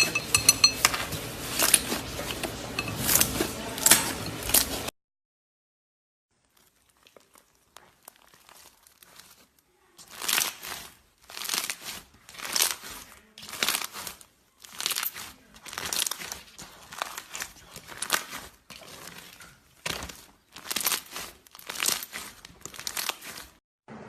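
Slime being squeezed and worked by hand, giving crackling, crinkling bursts. A busier stretch with a steady hiss cuts off suddenly about five seconds in. After a few quiet seconds, the crackles return as separate bursts about once a second.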